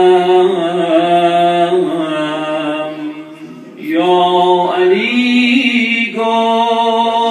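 A man's solo voice chanting an Arabic religious invocation in long held notes, breaking briefly for a breath about three and a half seconds in and resuming on a higher note.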